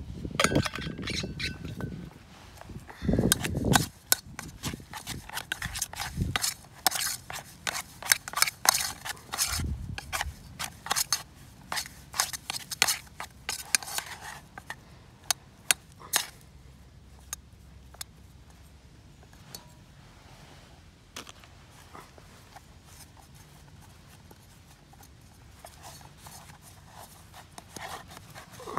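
A metal spork scraping and clicking against the inside of a metal camping pot as stiff pizza dough is stirred, in a quick irregular run of clicks and scrapes. About halfway through it thins to occasional soft knocks and rubbing as the dough is worked by hand in the pot.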